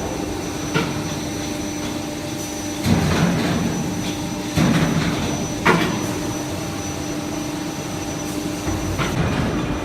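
CNC electro-hydraulic press brake running: a steady hydraulic-pump hum with several sharp metallic clunks a second or two apart.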